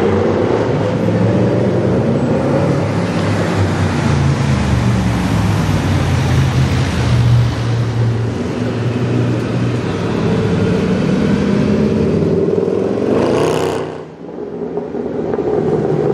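Mercedes-Benz C63 AMG's V8 exhaust as the car accelerates through corners, revs climbing and falling. Near the end a quick rising rev cuts off abruptly, and the engine picks up again a moment later.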